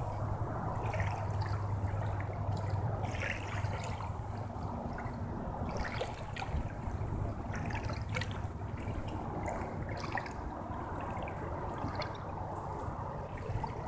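Calm saltwater lapping gently at a sandy shore, with small trickles and splashes scattered through, over a low steady hum that is strongest in the first few seconds.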